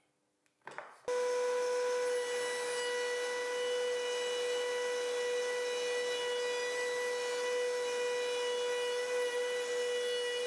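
Table-mounted router motor running steadily at speed: a constant whine with a haze of cutting noise, starting abruptly about a second in.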